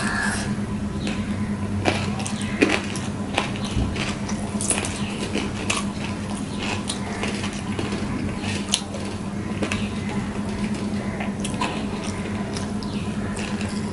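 Close-up eating sounds: fingers mixing and squishing boiled rice on a steel plate, with chewing and wet mouth noises heard as irregular soft clicks, over a steady low hum.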